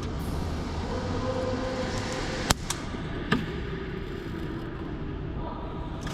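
Two sharp airsoft gun shots about a second apart, over a steady background hum.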